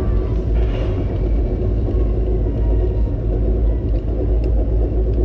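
Vekoma Loopscrew roller coaster train running with a steady low rumble, with a few faint clicks in the second half.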